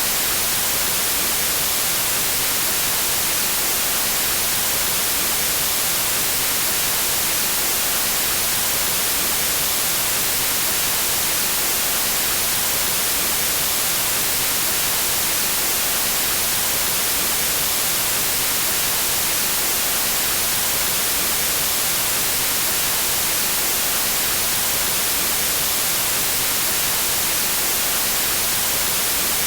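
Steady synthetic white noise: an even, unchanging hiss across the whole range, brightest in the highs.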